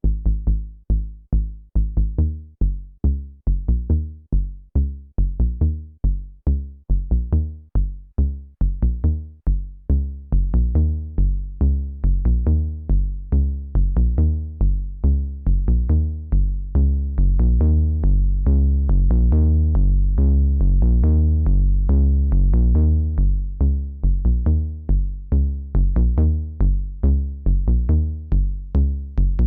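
KORG Volca Kick analog kick synthesizer playing a sequenced pattern of deep kick drum hits, about four a second, stepping between pitches. About ten seconds in, the notes lengthen into a fuller, more sustained bass line.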